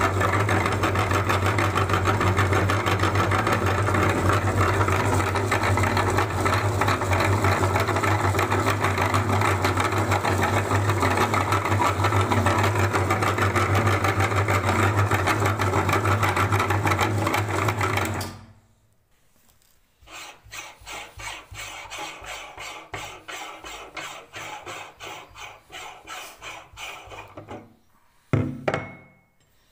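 Belt-driven meat grinder running with a steady hum as rubber balloons are fed through it, switching off about 18 seconds in. A quieter, fast rattling follows, then a couple of sharp metal knocks near the end as the grinder's ring nut is taken off.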